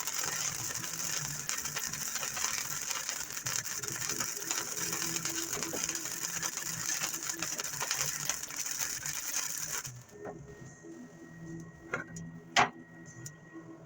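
Welding arc laying a bead, a steady crackling hiss that cuts off suddenly about ten seconds in, followed by a few light clicks and one sharp click near the end.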